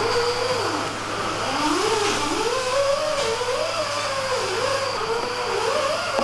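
A motor whining, its pitch wavering up and down, over a steady low hum.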